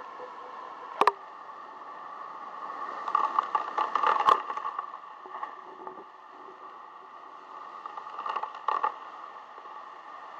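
Storm wind and rain picked up by a doorbell camera's small microphone: a steady rushing noise that swells into gusty, crackling stretches around the middle and again near the end. Sharp single knocks cut through about a second in, around four seconds and near the end.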